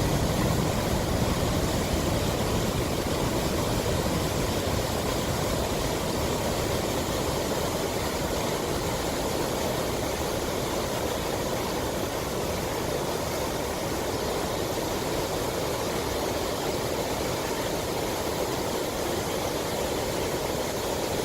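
Floodwater of a flash flood rushing down a desert wadi channel: a steady, even rush of water.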